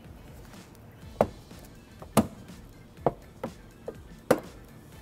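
Wire cutters snipping through the plastic honeycomb grille of a Fiat 500's front fascia: six sharp snips at irregular spacing, starting about a second in.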